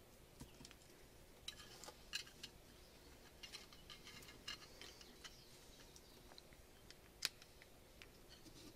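Near silence with faint small clicks and rattles of 3D-printed plastic battery-holder blocks being handled, and cylindrical cells being pushed into a holder; one sharper click about seven seconds in.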